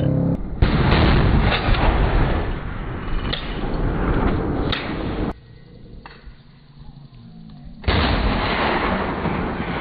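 Gunfire on a live-fire range: a long, dense stretch of firing that stops abruptly about five seconds in, then a second loud stretch near the end that fades away.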